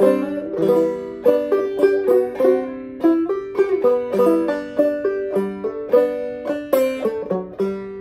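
Solo five-string banjo played clawhammer style in open G (gDGBD) tuning, picking out a waltz melody. Bright plucked notes each strike sharply, then ring and fade.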